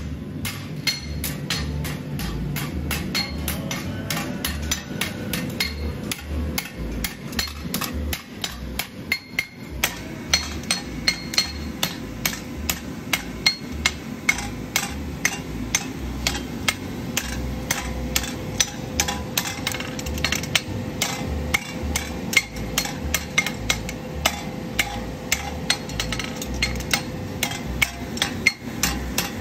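Farriers' hammers striking steel: many quick, irregular ringing strikes of varying loudness from several hammers overlapping, over a faint steady hum.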